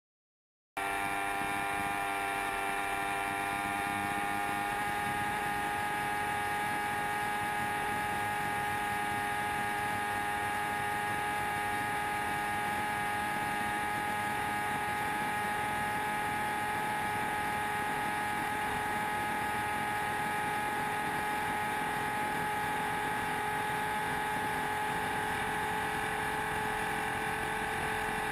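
Sport motorcycle's engine held at high revs near top speed, around 280–300 km/h: a steady high-pitched whine that climbs slightly in pitch, with wind rushing over the bike. It starts abruptly just under a second in.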